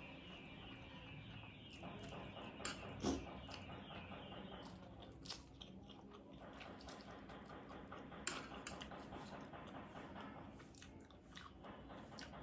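A person chewing a mouthful of Samyang Buldak instant noodles, with scattered sharp clicks. The loudest clicks come about three seconds in and again about eight seconds in.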